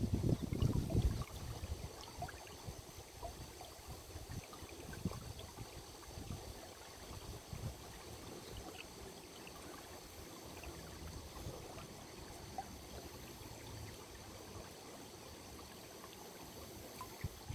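Water flowing and trickling in a small stream, a steady quiet wash with small ticks and gurgles, louder and lower in the first second or so.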